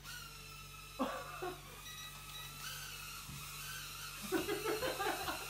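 Small toy drones' propellers whining in flight, a steady high whine that wavers slightly in pitch as they are steered. A choppier jumble of short sounds joins in near the end.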